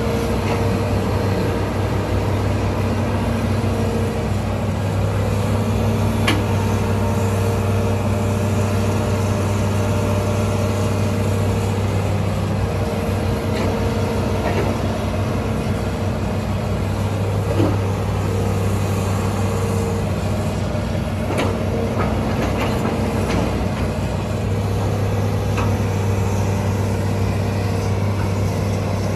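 Hitachi Zaxis 210LC-5G long-reach excavator's diesel engine running steadily under work, with a few short knocks scattered through.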